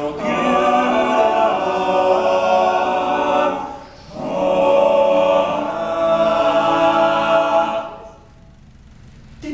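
All-male a cappella group singing held chords in close harmony, in two long phrases with a short break about four seconds in. The singing stops about eight seconds in, leaving only faint room sound.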